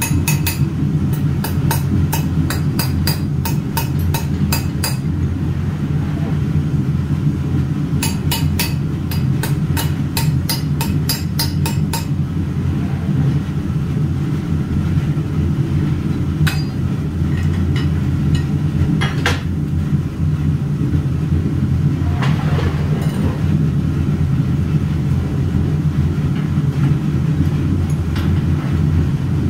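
Rapid light hammer taps on metal, in two runs of about four taps a second, over a steady low machine drone; a few single knocks follow later.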